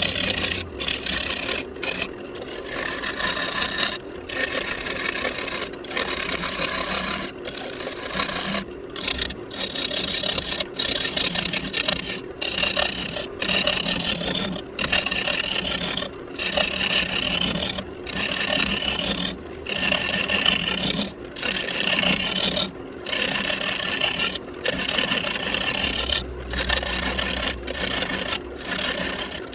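Wood lathe running while a turning tool cuts into a spinning walnut blank, a scraping, shaving sound over the motor's steady hum. The cutting comes in repeated passes, broken by short gaps every second or two.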